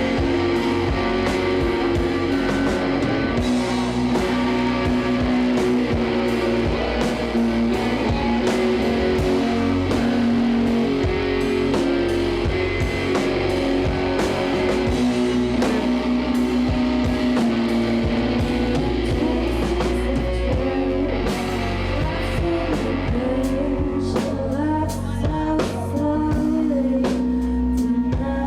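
A live rock band playing, with electric guitar and a drum kit.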